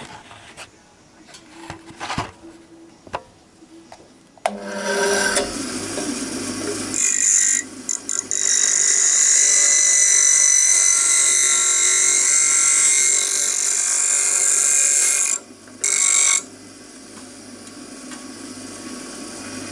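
Bench grinder switched on after a few seconds of handling clicks, then a metal part held in locking pliers pressed against the spinning wheel: a loud, steady grinding hiss for about eight seconds, a short break and a brief second pass, after which the grinder runs on free. The part is being ground down so that it will sit flush.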